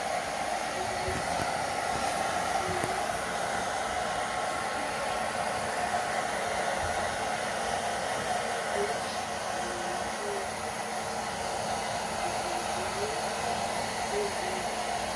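Handheld hair dryer running steadily, blowing air onto a dog's coat.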